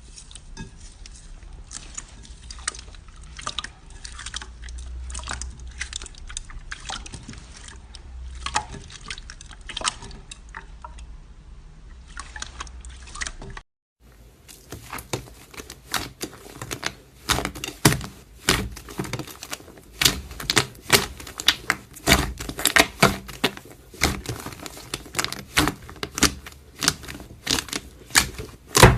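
Slime being squished and worked by hand, a continuous run of wet clicks and pops. About halfway through it cuts to another clip with louder, denser clicking.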